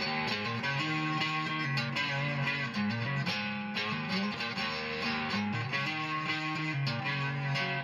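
Intro music: a guitar playing a picked melodic line, its notes changing several times a second.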